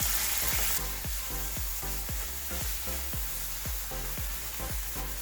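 Sauce of shrimp, sardine, tomato and onion sizzling in a frying pan while it is stirred. The sizzle is strongest for about the first second, then settles lower.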